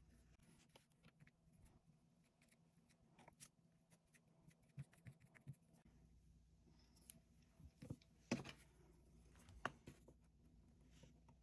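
Faint handling sounds of hand bookbinding work: light scrapes, taps and rustles of hands and small tools on a cloth-covered book board and cutting mat. Two sharper knocks come near the end.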